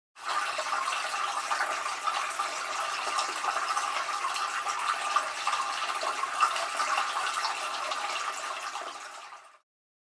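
Water splashing steadily as it falls from tiered buckets into the basin of a small cement tabletop fountain, fading out near the end.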